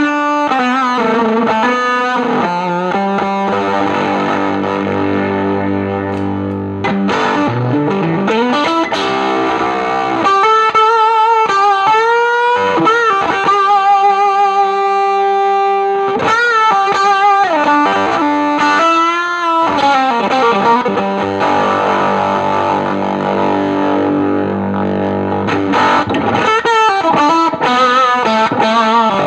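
Electric guitar played through a Spruce Effects Volcanoes silicon/germanium hybrid fuzz pedal into a Milkman The Amp 100. Thick fuzzed chords ring out early on and again near the end. In between come held single lead notes that are bent and shaken with vibrato, with a rising slide a little before the middle.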